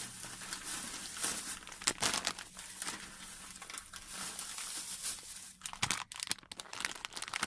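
Plastic packaging of squishy toys crinkling and rustling as the packets are handled and pulled out one after another, with sharp crackles throughout.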